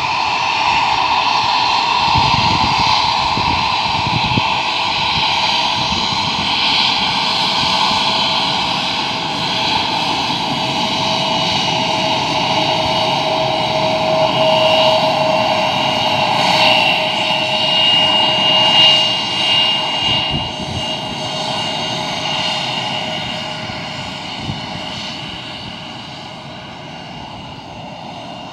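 Bombardier CRJ-1000 regional jet's two rear-mounted turbofans running with a steady whine as the jet rolls past along the runway. The sound fades over the last several seconds as it moves away.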